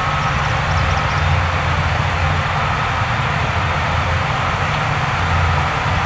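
Heavy diesel earthmoving machinery running steadily under load: a deep, even engine drone with a faint high tone coming and going about once a second.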